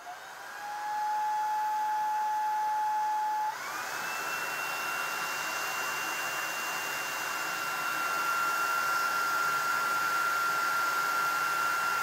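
Shark Vertex Pro cordless stick vacuum's motor spinning up with a rising whine, then running at a steady pitch. About three and a half seconds in it steps up to a higher-pitched whine with more rushing air as it goes into boost mode, and holds there.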